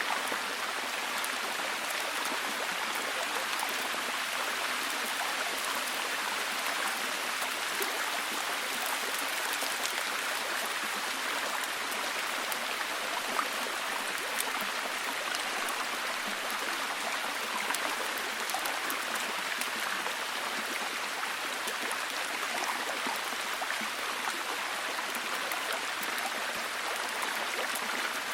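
A forest stream running steadily, with rain falling and pattering in many small drops.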